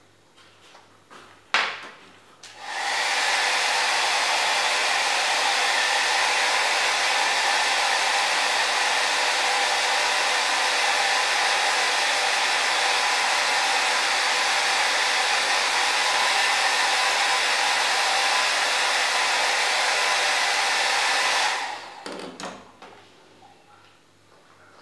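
A sharp click, then a handheld hair dryer blowing with a steady even rush for about nineteen seconds before it is switched off and runs down.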